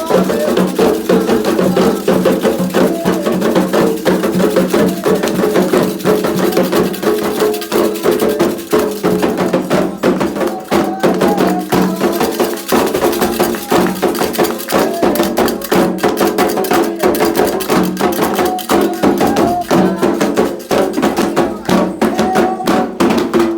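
Candomblé ritual music: atabaque hand drums and other percussion playing a dense, driving rhythm under group chanting.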